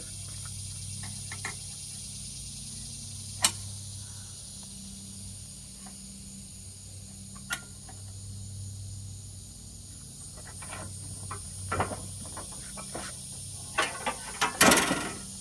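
Hand-tool work on a riding mower: a sharp click now and then, then a run of knocks and clicks near the end, the loudest just before it ends, over a steady low hum.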